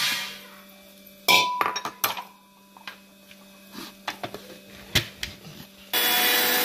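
Steel bowls and a steel grinder jar clink and knock as dry-roasted chillies and seeds are tipped in, with one sharp knock about a second in. Near the end an electric grinder switches on and runs steadily, powdering the roasted spices.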